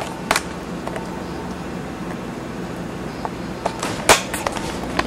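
Steady hum of a car driving, heard from inside the cabin, with a few sharp clicks about a third of a second in and again about four seconds in.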